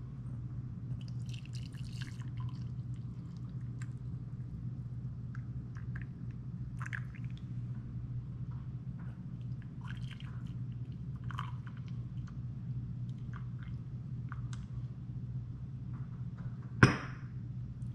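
Panna cotta cream dripping and trickling as it is poured from a stainless-steel pot into glass jars, with scattered small clinks. One sharp knock near the end stands out above a steady low hum.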